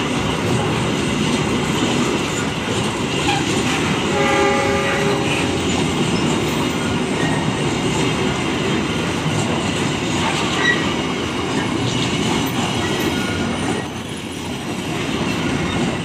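Freight train of loaded flat wagons passing close by, its wheels running steadily over the rails. A short train horn blast sounds about four seconds in.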